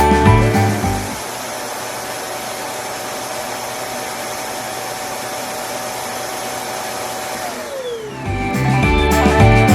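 Cordless vacuum cleaner running: its motor whine rises as it is switched on, holds steady with a rushing hiss for about seven seconds, then winds down as it is switched off.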